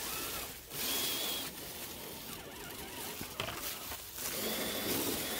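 Electric drive motor of an RC crawler truck whining in two short high-pitched bursts, about a second in and again near the end, over a rush of noise from the truck moving on the trail.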